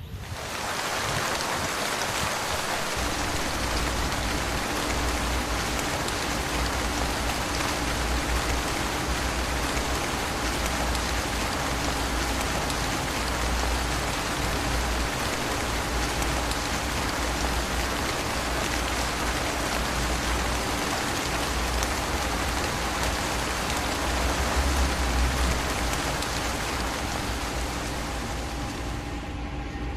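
Steady rain falling, an even hiss of many drops that swells up within the first second. A low rumble runs underneath from about three seconds in.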